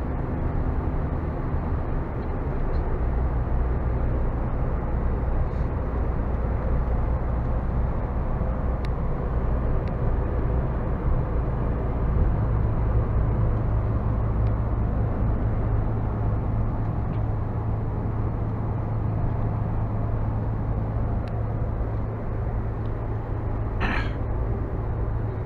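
Lorry engine running steadily at low speed, heard from inside the cab. About halfway through, the engine note steps up a little and holds.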